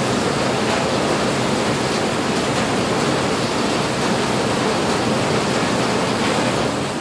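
Steady rushing of water, an even hiss with no break.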